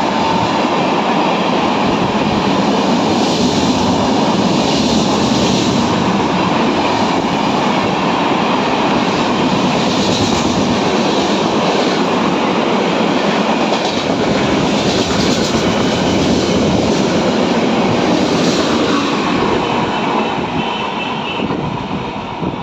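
LHB passenger coaches of an express train passing at speed: a loud, steady rush of wheels on rail with a recurring clatter. It eases off near the end as the last coaches go by.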